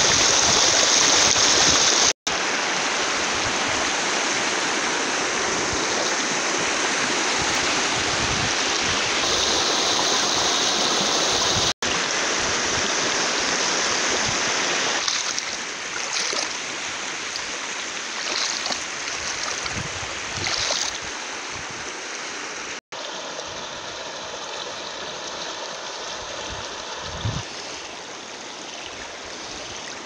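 Shallow rocky stream rushing over stones, close to the water. About halfway through it softens to a quieter burble over pebbles, and the sound cuts out briefly three times.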